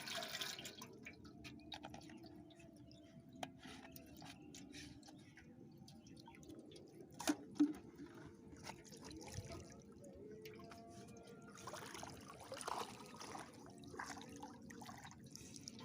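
Water dripping and small splashes, with scattered clicks and two sharp knocks near the middle.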